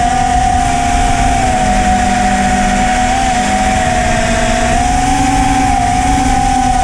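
Small FPV quadcopter's brushless motors and three-inch propellers whining in flight, a high steady hum whose pitch wavers with the throttle, dipping about two seconds in and rising again near five seconds, over rushing wind noise.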